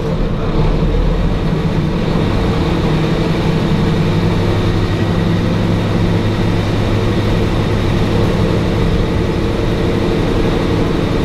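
Diesel railcar engine working under power as the train pulls away, heard from inside the passenger cabin. The engine note comes up sharply at the start and then holds steady and low.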